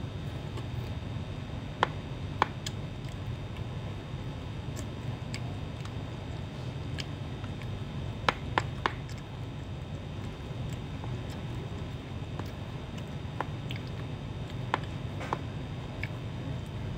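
Metal spoon clicking against a plastic food container while rice is scooped up: two sharp clicks about two seconds in, three in quick succession a little past the middle, and two more near the end. A steady low room hum sits under it.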